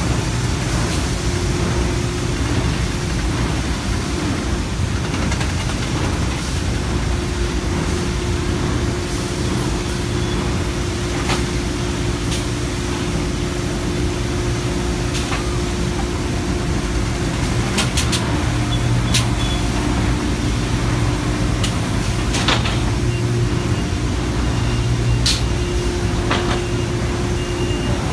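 Roller conveyor line and surrounding factory machinery running with a steady hum, with occasional sharp clicks and knocks.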